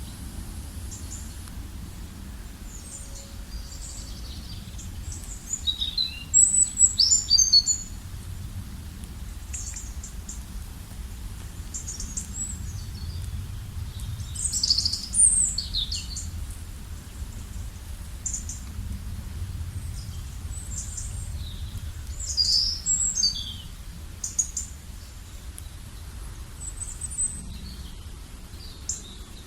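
Songbirds chirping and calling outdoors: many short, high chirps and quick trills come and go throughout, with the busiest bursts a few seconds in and around the middle. A steady low rumble lies underneath.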